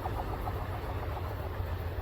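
Diesel train's engine running with a steady low rumble; a pulsing mid-pitched sound above it fades out about half a second in.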